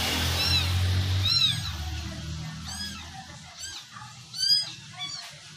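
Kitten mewing again and again in short, high-pitched mews that come faster toward the end, over a low hum that fades out about halfway through.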